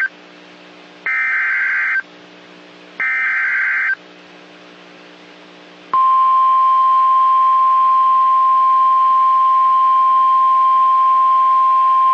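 Emergency Alert System SAME header: three one-second buzzing data bursts, the first caught only at its tail, with a faint hum in the gaps. About six seconds in, the steady single-pitch attention tone of a weather-radio warning alarm begins.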